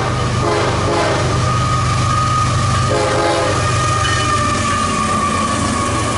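CSX freight train passing close by: the lead diesel locomotive sounds its multi-chime horn in short blasts in the first second and again about three seconds in, over the engine's running. As the intermodal stack cars roll past, a steady high wheel squeal comes in.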